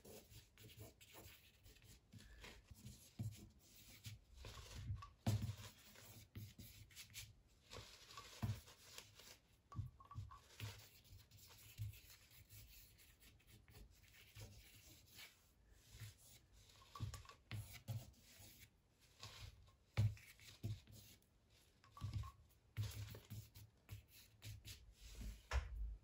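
Faint scratching and tapping of an ink-dipped twig on paper, in irregular short strokes and dabs.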